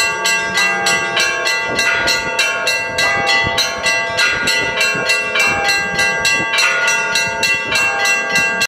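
Russian-style church bell ringing (zvon): several bells of different pitches struck one after another at a quick, even pace, several strokes a second, each stroke ringing on under the next.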